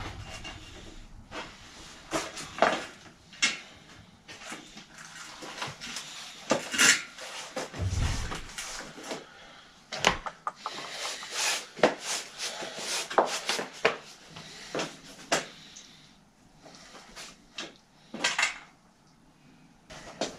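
Hands working on a bicycle wheel, tyre and parts: irregular clicks, knocks and rustling, with a dull thump about eight seconds in. It grows sparser near the end.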